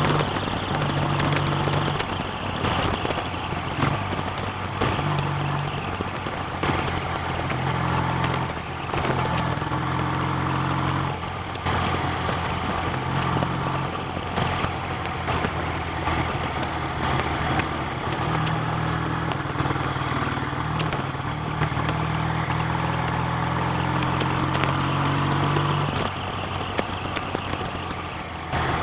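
BSA A65 650 cc parallel-twin motorcycle engine running under way, its pitch rising and falling several times with throttle and road speed, over a steady rushing noise.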